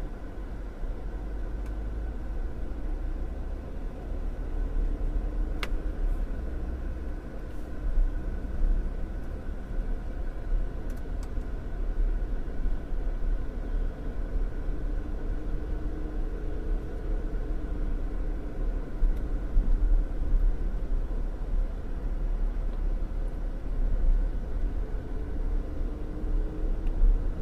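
Car driving, heard from inside the cabin: a steady low rumble of road and engine, with a faint hum that slowly rises and falls in pitch.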